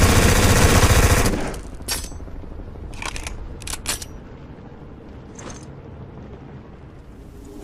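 Uzi submachine gun firing a full-auto burst that cuts off about a second in, followed by a few scattered sharp metallic clicks.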